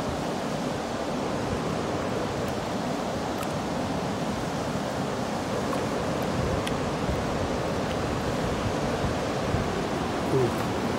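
Steady rush of river water tumbling over a dam's spillway, an even roar with no breaks.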